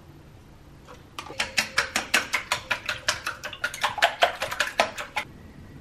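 Chopsticks beating eggs in a bowl: a quick run of clicks against the bowl, about six a second, starting about a second in and stopping a little before the end.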